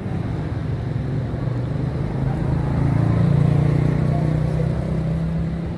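Road traffic: a motor vehicle's engine running close by with a steady low hum, swelling to its loudest about three and a half seconds in and then easing off as it passes.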